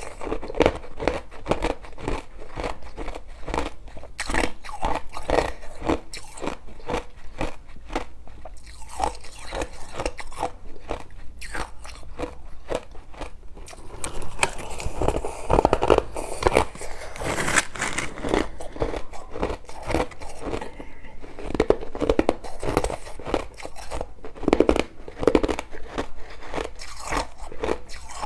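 Crushed ice being bitten and chewed, with rapid, sharp crunches several times a second.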